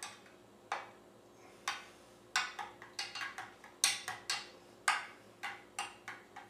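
Metal spoon and knife tapping and scraping against the cups of a metal muffin pan as thick batter is pressed down. This gives about a dozen sharp, irregular clicks.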